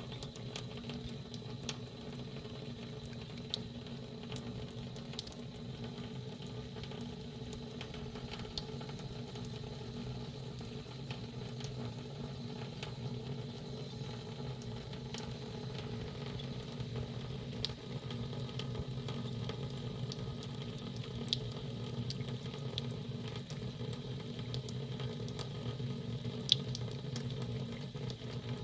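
Water running steadily from a tap with a low hum, and scattered soft clicks and ticks from drips or a cat lapping.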